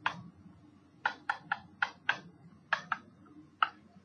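A pen stylus tapping and clicking on a touch-screen surface while numbers are handwritten: about nine sharp taps at uneven intervals, in small clusters.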